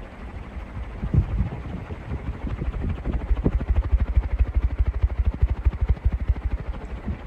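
Heavy-duty industrial fan running at full speed, its blade wind buffeting the microphone in a rapid low chopping pulse that grows stronger about three seconds in.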